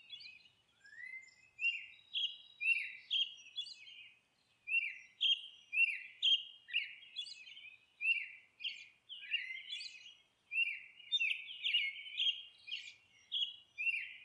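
Birds chirping: a run of short, high chirps, each sliding down in pitch, about two a second, with a brief pause around four seconds in.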